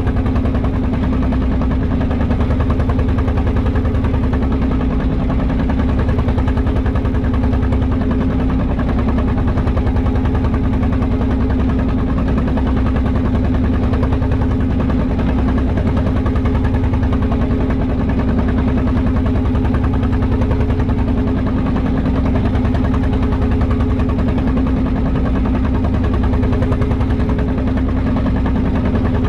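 A small wooden fishing boat's engine running steadily, an even low hum that does not change.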